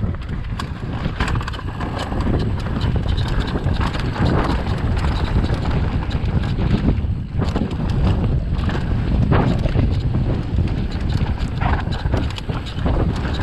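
Mountain bike clattering over a rough, stony track: irregular knocks and rattles throughout, with a steady wind rumble on the microphone.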